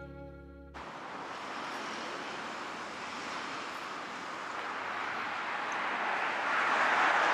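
Outdoor city street noise: an even rushing hiss of distant traffic that swells near the end.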